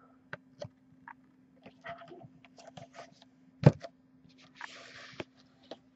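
Hands handling a boxed trading-card set on a table: scattered light clicks and scrapes, one sharper knock a little past the middle, then a short rustling hiss. A steady low electrical hum runs underneath.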